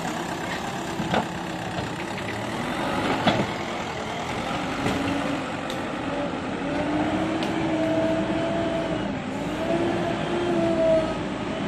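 JCB backhoe loader's diesel engine running as the machine drives over rough ground, with a couple of sharp knocks in the first few seconds. In the second half a whining tone rises and falls with the load on the engine.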